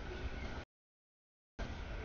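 Freight train cars rolling past a grade crossing: a steady rumbling noise of wheels on rail. The audio drops out to dead silence for about a second in the middle and then comes back.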